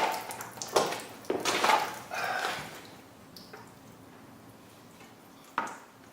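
A few short knocks and clatters of hard objects being handled, with a single click about five and a half seconds in.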